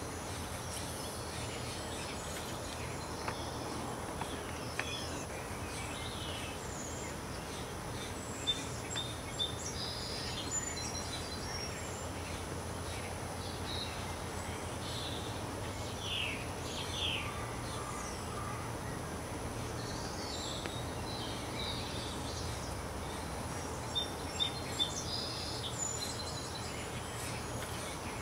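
Steady outdoor background noise with scattered short, high bird chirps and calls, and a few sharp clicks.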